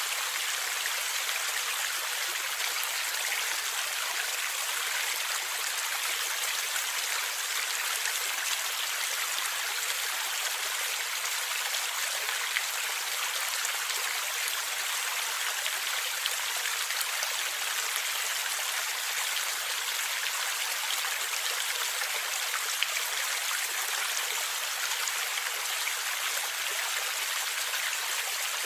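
Flowing stream water, a steady rushing and gurgling with faint splashes.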